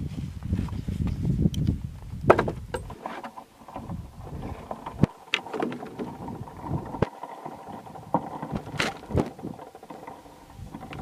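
Dry hay rustling and crackling as it is pulled by the handful from a stacked pile, with scattered sharp crackles. A low rumble fills the first few seconds, and a faint steady hum runs underneath from about a third of the way in.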